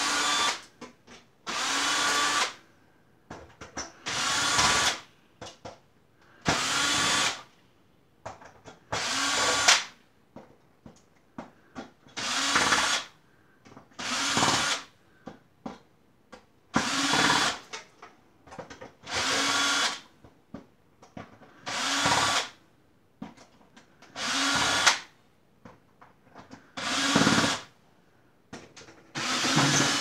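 Cordless drill-driver running in short bursts to back out screws from a server's sheet-metal chassis: about a dozen runs of motor whine, one every two to two and a half seconds, with small clicks of handling between them.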